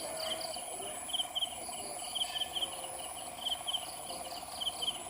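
Crickets chirping in short paired chirps repeating about once a second, over a steady high insect whine and a lower rapid trill.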